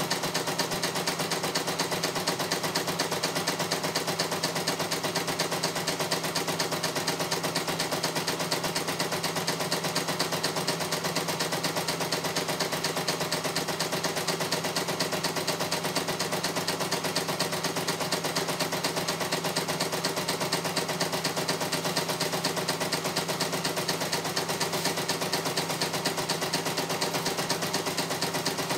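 CNY E900 computerized embroidery machine stitching out a design, its needle striking in a rapid, even clatter that never lets up.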